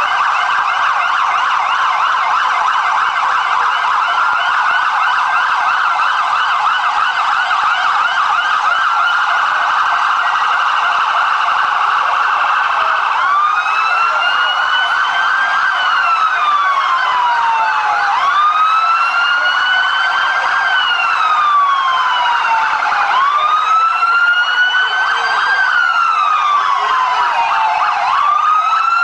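Police car sirens, several sounding at once in a fast yelp for about the first half. From about halfway they change to a slow wail, each cycle rising sharply and sliding down over about five seconds.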